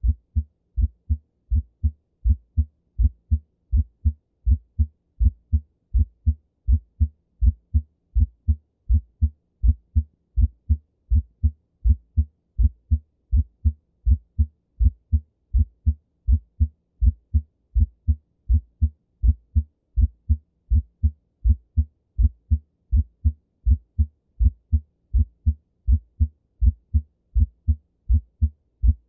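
Heart sounds: a steady, regular rhythm of low thuds in which the first heart sound (S1) is split into two close components. A split S1 is usually a normal finding but can be heard in right bundle branch block.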